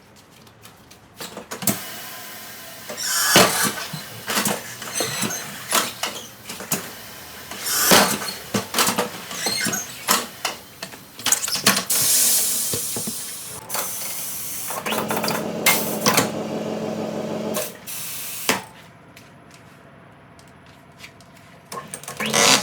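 Leverless tyre changer at work, sped up to double speed: metal clicks and clanks from the changer's tools, bursts of air hiss, and the turntable motor running steadily for a couple of seconds in the second half.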